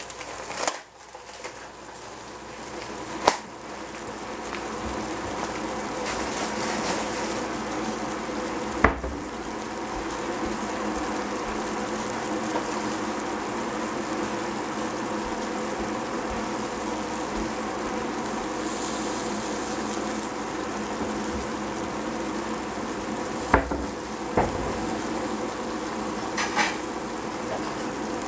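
Water in a stainless steel pot of cabbage heating on the stove, a hiss that builds over the first few seconds and then holds steady as it comes toward a simmer. A few sharp metallic knocks stand out, about three seconds in, near nine seconds and near the end.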